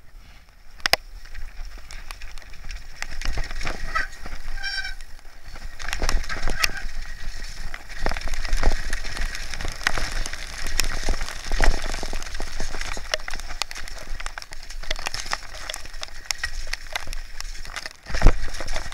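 Downhill mountain bike ridden fast over a rough, rocky trail: the bike and tyres rattle and knock continuously over the stones, with wind rushing over the microphone. There is a brief pulsing squeal about four to five seconds in, and a hard knock just after eighteen seconds.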